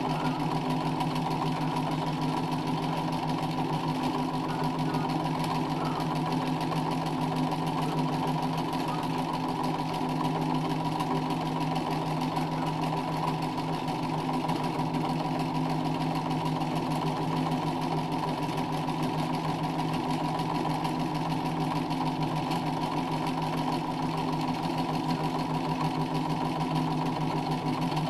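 Domestic sewing machine running steadily at speed, stitching free-motion embroidery with the needle going up and down continuously.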